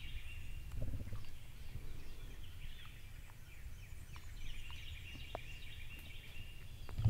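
Woodland songbirds chirping and singing steadily over a low rumble.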